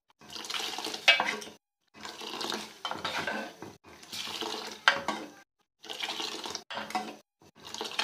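Kashmiri pink tea decoction (green-tea kahwa) being beaten in a pot with a metal utensil: clinking and scraping against the pot with liquid splashing, in uneven bursts. This is the aerating step that brings out the tea's pink colour.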